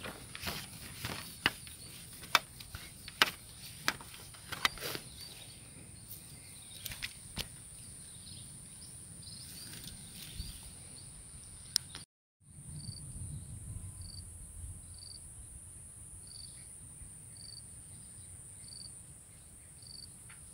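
Steady high-pitched insect drone, with a run of sharp clicks in the first few seconds. After a cut, a faint short chirp repeats about every 0.7 seconds over the drone.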